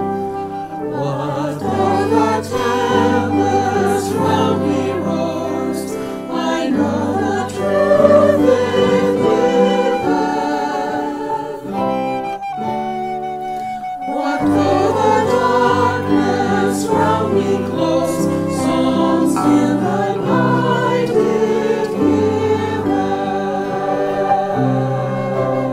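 Offertory music: a choir singing.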